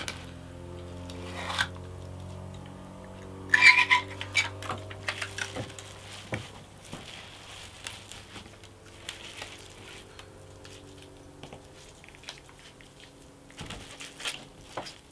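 A metal soil block maker being pushed into wet potting compost and worked in the tray: gritty scraping and crunching of soil, loudest about four seconds in and again near the end. Soft background music with sustained notes plays underneath.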